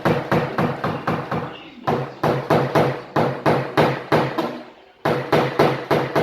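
Small paintless-dent-repair hammer rapidly tapping down the sheet metal of a dented car door, about four to five light strikes a second in three runs with short breaks, knocking down high spots so the panel can be levelled without repainting.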